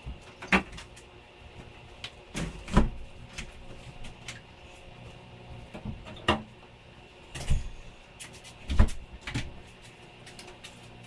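A string of irregular knocks and clunks, the heaviest about three and nine seconds in, as things are handled and set down and doors or drawers are shut.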